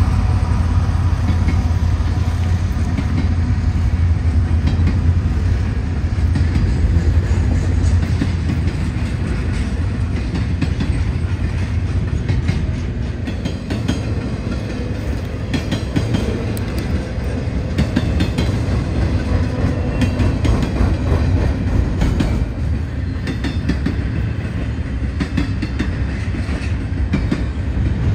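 Double-stack intermodal container train rolling past: a steady low rumble of the well cars with repeated clacks of wheels over rail joints.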